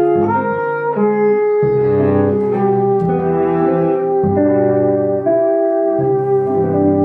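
Live small-group jazz: a brass horn and an archtop electric guitar playing together, with one long note held from about a second in to the end over changing low notes.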